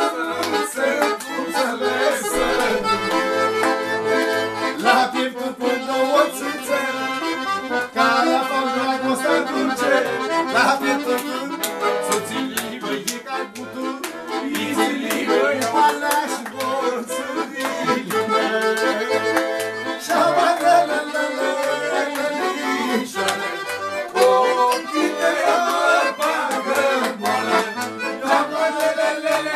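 Accordion and violin playing a Romanian folk tune together, the accordion's bass buttons keeping a steady beat under the melody.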